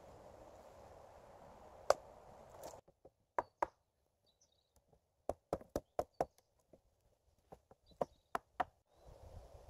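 Sharp wooden knocks: a single one about two seconds in, then a run of about a dozen, unevenly spaced, as a blade is hammered into a peeled wooden pole to split it lengthwise.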